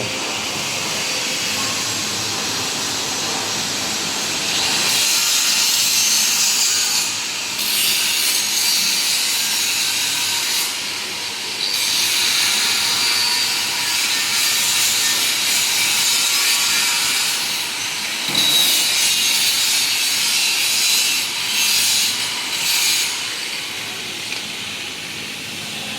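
Steel being cut on the job: a loud, hissing, grinding cutting noise that gets louder about four and a half seconds in and breaks off briefly and resumes several times.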